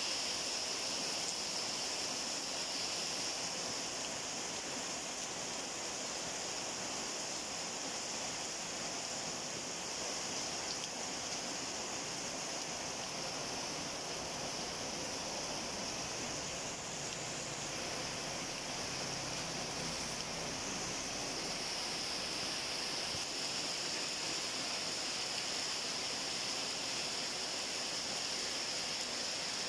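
Steady rain falling on garden foliage and ground, an even hiss with no breaks.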